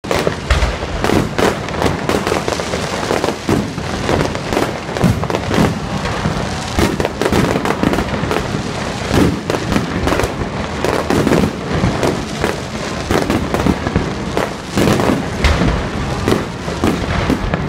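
Aerial fireworks display: shells bursting one after another in a dense, unbroken run of bangs with no pause between volleys.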